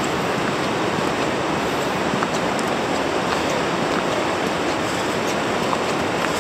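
Steady rushing of river water down in the gorge, with a few faint crunching footsteps on the leaf-strewn gravel path.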